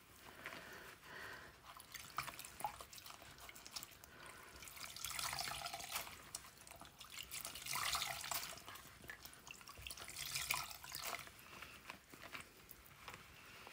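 Wet raw wool locks squeezed out by hand over a jug of soapy wash water: water dripping and trickling back into the jug in a few faint swells.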